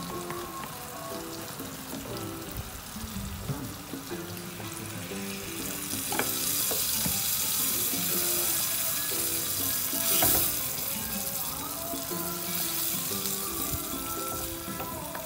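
Spice paste and onions sizzling in a frying pan, stirred with a wooden spatula; the sizzle grows much louder about six seconds in. Background music plays throughout.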